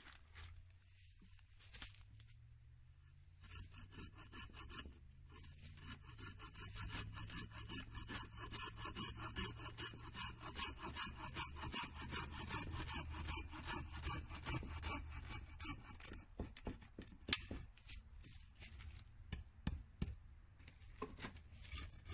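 Fiskars Power Tooth pruning saw, a curved 33 cm pull-stroke saw with extra-large teeth, cutting through a wooden shelter post with a steady rhythm of rasping strokes that start a few seconds in. The sawing stops at about 16 seconds, followed by a few knocks including one sharp one, and a few more strokes near the end.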